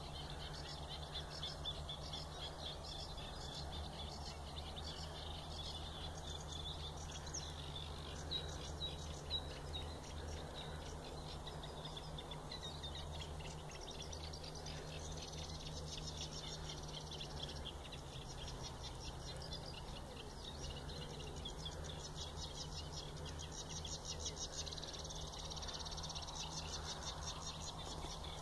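Reed warblers singing: a continuous, fast, repetitive chattering of short notes with no real break, over a steady low hum.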